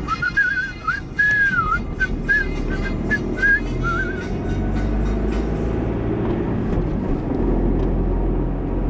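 A man whistling a lilting tune along to music, for about the first four seconds. After that only the low drone of the car in motion, heard from inside the cabin, goes on under faint music.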